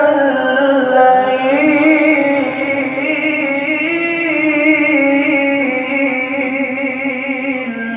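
A male Qur'an reciter (qari) holding one long, ornamented melodic note in tilawah style, the pitch wavering as it climbs slowly to a peak about halfway through and then sinks, breaking off near the end.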